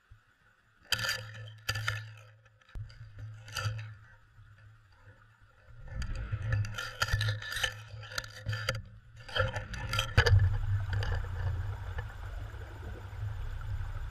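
Sharp clicks and clinks of a cod jigger's metal swivel and hook knocking against an underwater camera housing. A few come spaced apart at first, then a dense run from about six seconds in, with the noise of water rushing over the housing, all over a low steady hum.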